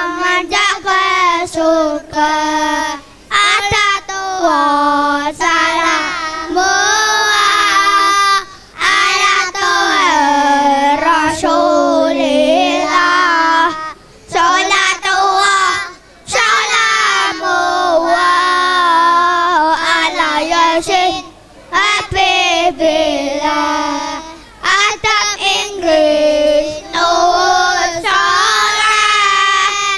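A group of young children singing together into microphones, in sung phrases separated by short breaths every few seconds.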